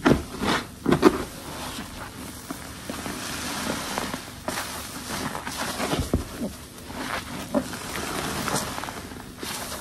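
Wet, detergent-soaked sponge being squeezed: two sharp squelches about half a second and a second in, then a steady fizzing hiss of foam and water with scattered small squishes.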